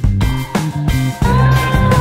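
Background music with a steady beat and a strong bass line; a held note comes in about halfway.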